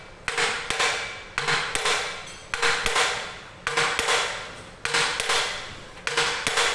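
Hammer striking metal, about one blow a second, each blow ringing briefly, while a Mercedes 1525 gearbox is being knocked apart.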